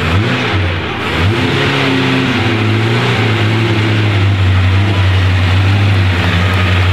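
1934 Bugatti Type 59 Sports' supercharged straight-eight engine, blipped up and down a couple of times during the first two seconds, then running at a steady low speed as the car creeps forward.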